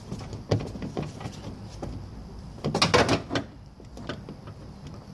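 Pliers working a cracked plastic piece out of a door handle assembly: scattered clicks and snaps, with a quick cluster of sharp, loud clicks about three seconds in.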